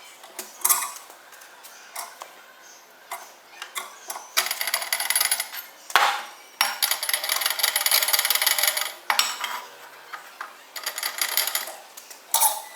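Light metallic clinking and rattling in clusters as the steel parts of a homemade bolted pipe vise knock together while it is worked. The densest rattling comes in two stretches around the middle.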